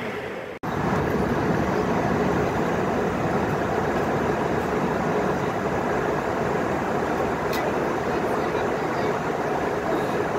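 Steady cabin noise inside an Airbus A320 on its approach: an even rush of airflow with engine hum. It breaks off for an instant about half a second in, then carries on a little louder.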